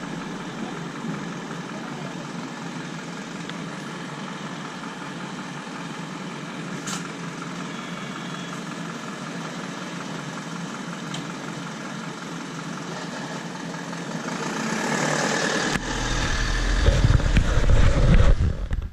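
Bus engine and cabin noise heard from inside a route bus, steady for most of the time. From about three-quarters of the way in it grows louder, with a deep rumble.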